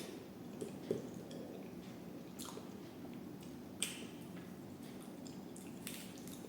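A person eating rice and lentil dal: soft wet squishing and chewing, with a few short sharp clicks about one, two and a half, four and six seconds in, over a steady low hum.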